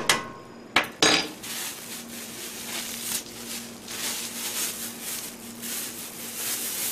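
A metal spoon knocks against the pan a few times in the first second, then a plastic bag crinkles and rustles steadily as it is handled and opened.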